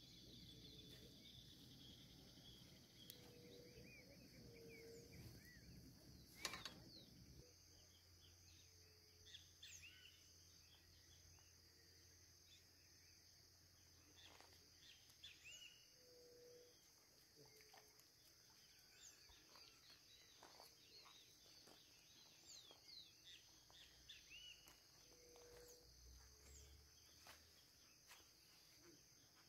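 Near silence: faint outdoor ambience with a steady high insect drone and scattered small bird chirps. There is a single sharp click about six and a half seconds in.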